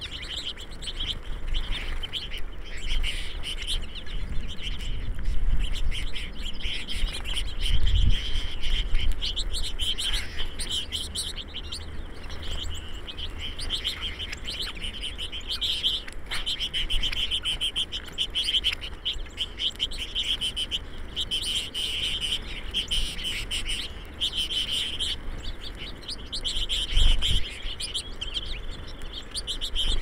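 A flock of small songbirds at a feeder chirping and twittering constantly, many short high calls overlapping. A low rumble on the microphone swells about eight seconds in and again near the end.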